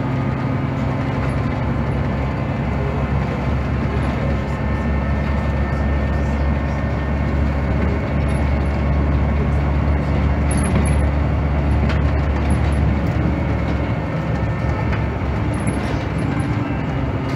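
Heuliez GX217 CNG city bus heard from inside the passenger cabin: its compressed-natural-gas engine pulling steadily under way over road and body rumble. The low drone grows louder through the middle and eases off a few seconds before the end.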